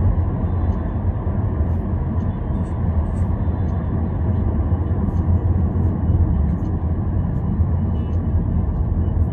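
Steady low rumble of engine and tyre noise heard inside the cabin of a car being driven.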